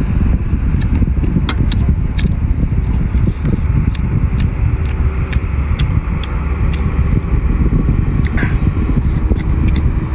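Close-up eating sounds: many short sharp clicks and smacks of chewing spicy braised pork over a loud, steady low rumble.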